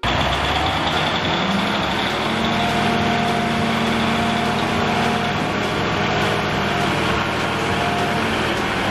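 Front loader's engine running steadily with an even hum, starting abruptly.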